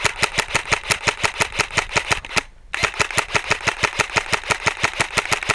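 Airsoft rifle firing long full-auto bursts: a rapid, even string of sharp pops that breaks off about two and a half seconds in, then starts again for a second long burst.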